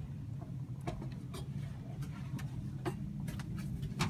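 Irregular light ticks and clicks, roughly one every half second to second, over a steady low hum.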